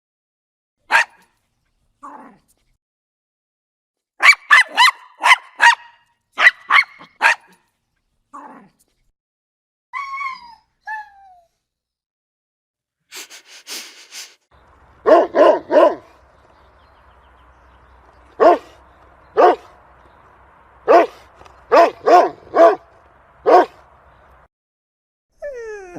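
Dog barking in short runs of sharp barks, several in quick succession and some single, with a couple of high calls that fall in pitch around the middle. A faint steady hum sits under the later barks.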